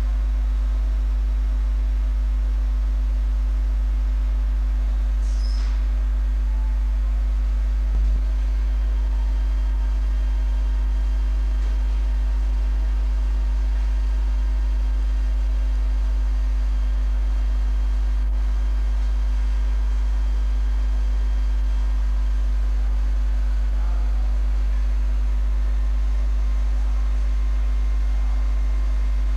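Large CNC grinding machine standing under power with its motors running: a steady low hum with several steady higher tones, and a single short thump about eight seconds in.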